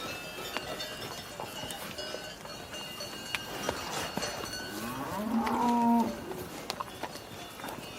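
A cow moos once, about five seconds in: a single call about a second long that rises slightly in pitch. It is heard over scattered light knocks and short, high ringing tones.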